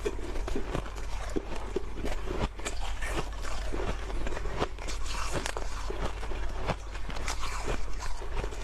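Close-miked crunching and biting of soft white ice, many irregular crisp crunches and crackles a few times a second as it is chewed.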